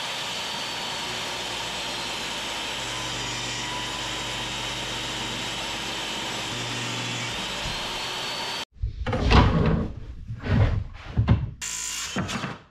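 Table saw running as it rips a board of Sapele mahogany lengthwise, a steady whine with a lower hum added while the blade is deepest in the cut. It stops abruptly, followed by a run of loud knocks and thumps.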